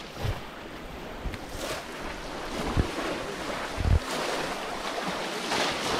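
Shallow muddy pond water sloshing and splashing as hands grope in a hole under the bank, with a steady rush of wind on the microphone and a few low thumps.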